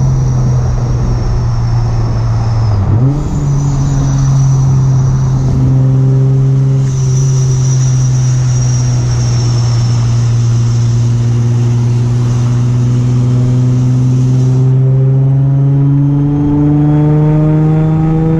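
Supercharged Infiniti G35's 3.5-litre V6 running under way. A steady low drone dips briefly about three seconds in, then a second note climbs slowly through the second half as the revs build, with a faint high whine coming and going.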